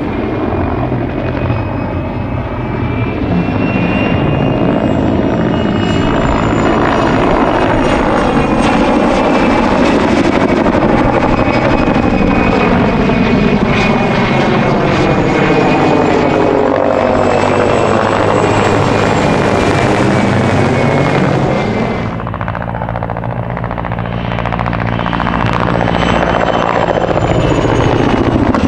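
PZL-Świdnik Mi-2 helicopter in display flight: the high whine of its two GTD-350 turboshaft engines over the main rotor. The sound swells and fades, and the whine's pitch drifts as the helicopter passes. It drops briefly in level about three quarters of the way through, then builds again.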